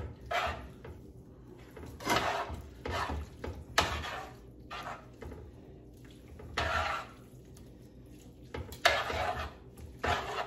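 Metal kitchen tongs tossing fettuccine in butter-lemon sauce in a skillet: roughly ten short, irregular scrapes and clinks of the tongs against the pan, with one sharp click about four seconds in.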